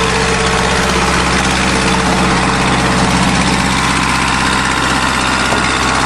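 Backhoe loader's engine running steadily as it tows a car out of shallow lake water.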